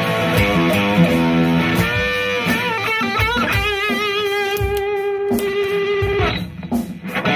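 Electric guitar played through an MXR boost pedal: a run of picked notes, then a held note with wide vibrato from about three seconds in, with a brief drop in the playing near the end before it picks up again.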